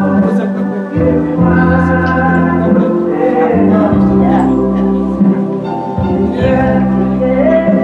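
Gospel music: voices singing over a keyboard accompaniment with a steady bass line.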